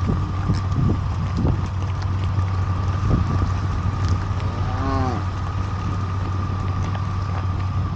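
A cow moos once, a short call that rises and falls about five seconds in, over the steady hum of an engine running throughout.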